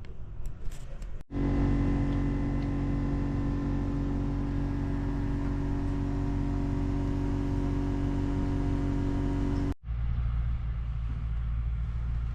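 Suzuki Samurai engine running steadily with an even hum. It cuts off abruptly near the end and gives way to a lower, steady rumble.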